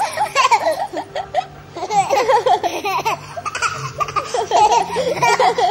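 A toddler laughing in several bursts of giggles.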